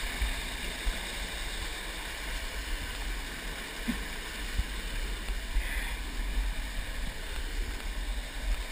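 Stream water rushing and splashing down a small rocky waterfall, a steady wash of noise, with an uneven low rumble on the microphone.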